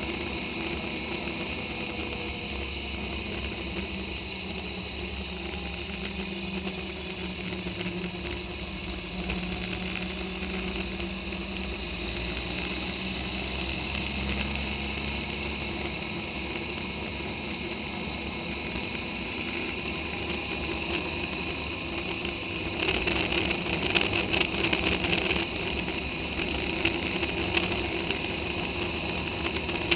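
Motorcycle engine running at a steady cruise under wind and road noise on a bike-mounted camera, growing louder and rougher for a few seconds about 23 seconds in.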